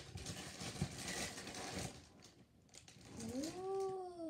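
Cardboard cereal box and its inner bag rustling as a hand works at the open top. About three seconds in comes one drawn-out, voice-like call that rises and then falls in pitch.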